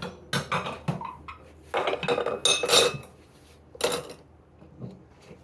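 Dishes and metal cutlery clattering and clinking as they are handled, a string of sharp knocks with brief ringing, busiest about two to three seconds in and once more near four seconds.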